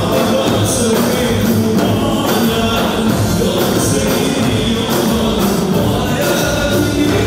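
Loud music with singing, running steadily without a break.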